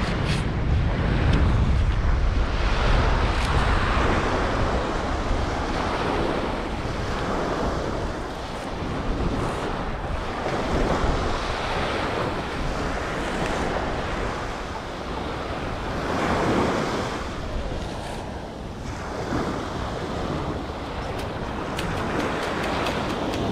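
Ocean surf washing onto the beach, with wind buffeting the microphone; the noise swells and fades every few seconds.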